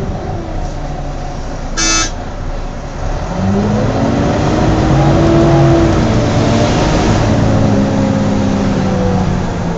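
Volvo B9TL double-decker bus's six-cylinder diesel engine pulling away, its note rising from about three seconds in, heard from the upper deck. A short toot sounds about two seconds in.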